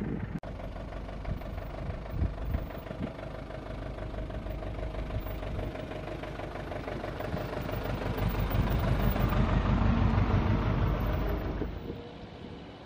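Motorhome engine running as the vehicle drives along a mountain road, with a steady whine, growing louder as it nears and peaking about ten seconds in before dropping away sharply near the end.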